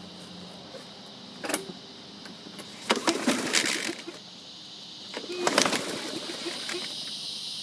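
Recoil starter cord pulled on a 2014 Murray 5 hp push mower, twice, each pull spinning the engine over with a quick run of compression chuffs. The engine does not fire: primed but not starting.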